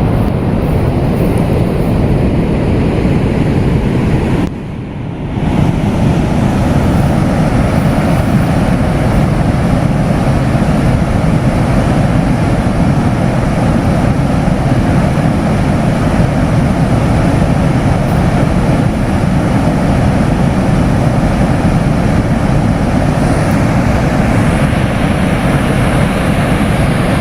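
Dettifoss waterfall's heavy rush of falling water, a loud, steady deep noise that dips briefly for about a second around five seconds in.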